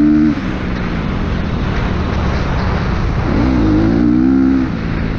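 Dirt bike engine being ridden hard. The throttle comes off about a third of a second in, then opens again a little after three seconds, with the pitch rising, holding and dropping away near the end, over steady wind and track noise.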